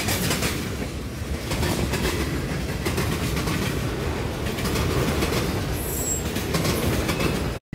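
Freight train cars, gondolas and autorack cars, rolling past close by, wheels clicking steadily over the rail joints, with a short high squeal about six seconds in. The sound cuts off abruptly near the end.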